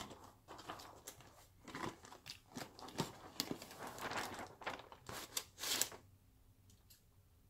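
Paperboard bakery box being opened: the lid is pulled up and its clear plastic window crinkles, in a run of irregular crackles and rustles that stops about six seconds in.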